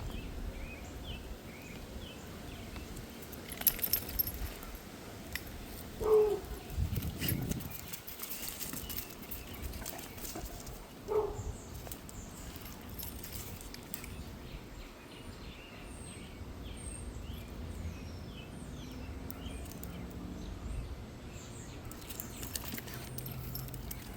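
Small birds chirping in the background while dogs play. A dog gives two short, downward-falling yelps, about six and eleven seconds in, and there is a brief metallic jingle, like collar tags, about four seconds in.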